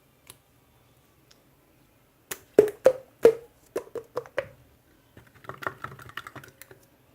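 Slime being handled: about eight sharp, wet popping clicks in quick succession from about two seconds in, typical of air pockets bursting as the slime is pressed and poked. A softer spell of rapid small crackles follows.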